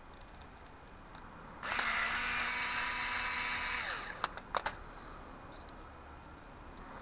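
A small handheld electric power tool, such as a drill or driver, runs at speed for about two seconds with a steady whine, then winds down. A few sharp clicks follow.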